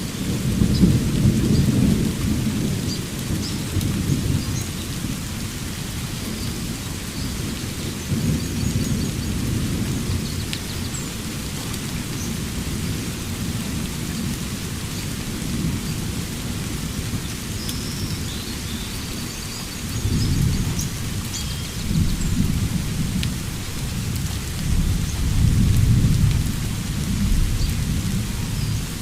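Steady rain with thunder rumbling again and again, loudest near the start and twice in the last third. Faint short bird chirps sound high above the rain.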